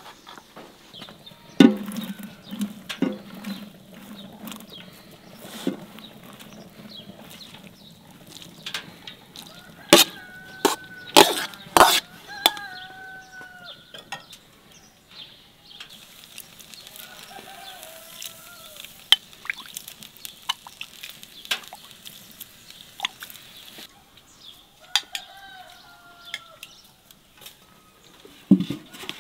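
Chickens clucking, with a few short calls that fall in pitch, among sharp knocks and clinks that are loudest about ten seconds in.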